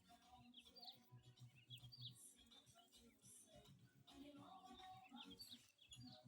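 Faint birds chirping, short high notes repeated on and off.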